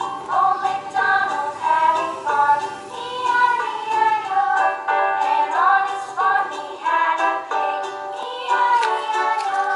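Background music: a children's song with a high, sung melody over a light instrumental accompaniment.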